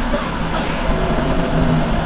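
Truck engine running with a steady rumble, heard from inside the cab as the truck moves along.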